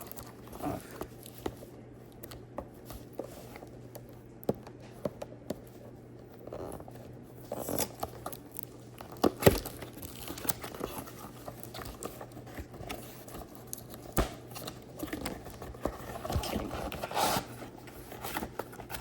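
Action-figure box packaging being handled and opened: scattered clicks, taps and rustling of cardboard, paper and plastic, with one sharper knock about halfway through, over a steady low hum.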